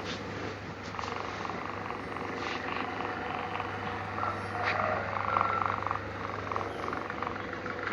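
A sleeping kitten snoring, a soft buzzy rhythmic breathing sound, over a steady low hum.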